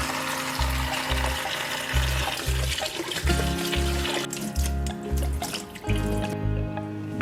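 Water running from a tap for the first four seconds or so, then cutting off, over background music with a steady beat.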